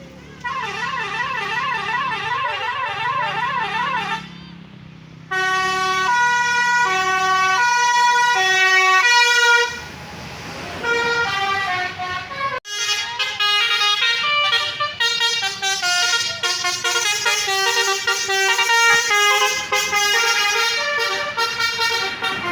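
Indonesian bus 'telolet basuri' multi-tone musical air horns. First a fast warbling, siren-like wail; then, after a short break, a run of separate held horn notes stepping up and down as a tune; and a little past halfway a faster, busier horn melody.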